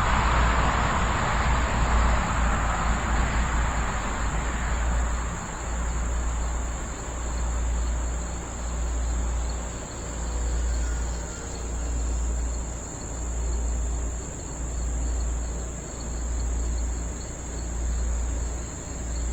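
Crickets chirring steadily, with a low rumble of wind on the microphone that swells and fades about once a second. Over the first few seconds the whir of the RC plane's electric motor and propeller fades away.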